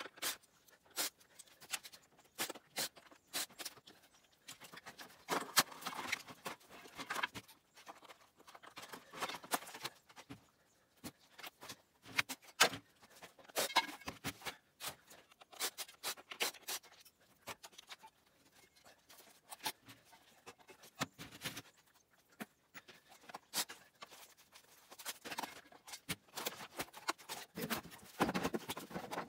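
Plastic CRT TV casing and screws being handled, with many sharp clicks and knocks, and short runs of a cordless drill backing screws out of the casing.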